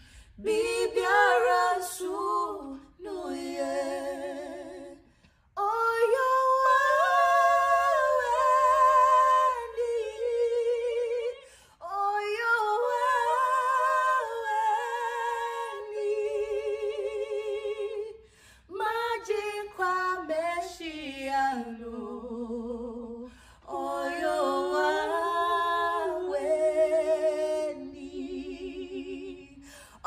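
A woman's voice singing unaccompanied, in phrases a few seconds long with long held notes that waver in pitch and short breaks between them.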